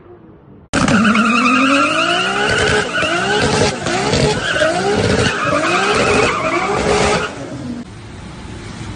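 MK4 Toyota Supra's 2JZ straight-six doing a burnout, its rear tyres screeching in a steady squeal while the engine revs rise and fall about once a second. The sound starts abruptly near the start and drops away about a second and a half before the end.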